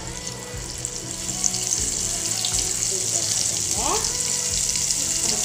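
Masala-coated fish frying in hot oil in a kadai: a dense sizzle that grows louder about a second in as the oil bubbles up around the fish, then holds steady.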